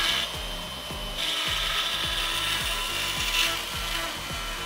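Skil plunge router with a spiral upcut bit running and cutting a shallow curved pass in an edge-glued pine panel. The noise of the cut drops about a third of a second in and picks up again about a second in. A soft beat of background music runs underneath.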